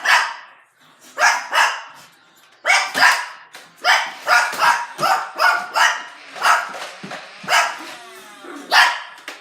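A dog barking over and over, more than a dozen short barks, at times two or three a second.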